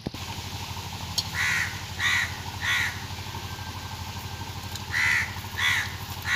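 A bird giving short calls in two runs of three, each call about half a second apart, over a steady low hum.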